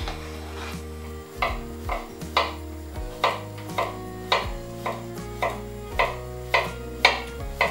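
Kitchen knife slicing a cucumber into rounds on a wooden cutting board: a crisp chop about twice a second as each slice is cut through.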